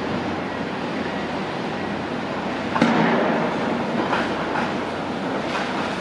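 Heavy construction machinery running with a steady noise, with a louder surge about three seconds in and a few metallic clanks after it.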